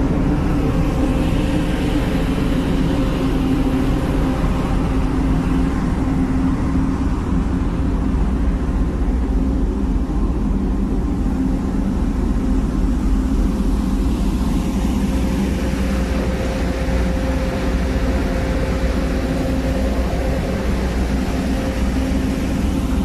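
Steady drone of a sightseeing ship's engines and machinery heard from the open deck: an even low hum with a steady tone in it, over a low rumble of wind on the microphone.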